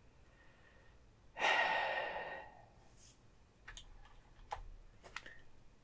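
A woman's long, breathy sigh about a second and a half in, fading away over about a second, followed by a few faint short clicks.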